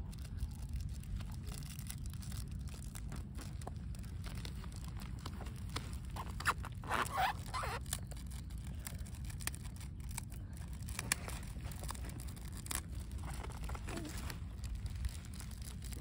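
Scattered rustling and crinkling with a few sharp clicks over a steady low rumble, with a denser burst of rustling about seven seconds in.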